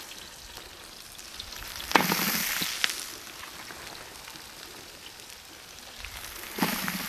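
Sliced onions tipped into a large aluminium pot of hot coconut oil and sizzling over a steady frying hiss. The sizzle flares up loudly about two seconds in and again near the end as more onions hit the oil.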